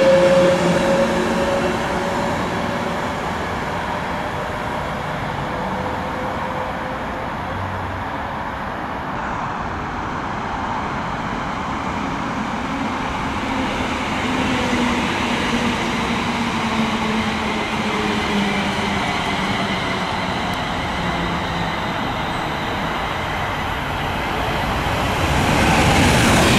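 Electric trains: the rear of an Avanti West Coast Class 390 Pendolino rushing past at the start, its sound falling away; then a London Northwestern Class 350 electric multiple unit with a low whine that falls in pitch; and near the end a second Pendolino's rush growing louder as it approaches.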